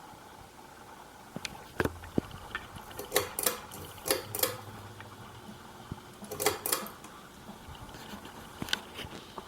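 Sea Gull Lighting Celebrity Deluxe ceiling fan running with a steady hum, broken by irregular sharp clicks and rattles in short clusters. The owner puts the noise down to loose screws holding the blade arms to the motor.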